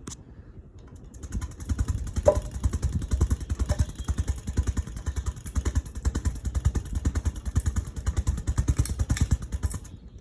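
Air from a Hunter Highbury ceiling fan's blades running on high, buffeting the microphone in a rapid, even pulsing of several beats a second. It starts about a second in and stops just before the end.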